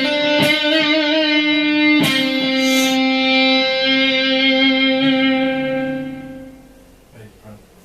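Fender Telecaster electric guitar played through a Meteoro GS-100 amp with a Boss GT-8 multi-effects unit. A few picked notes lead into a final note struck about two seconds in, which rings on and slowly fades away over the next four seconds.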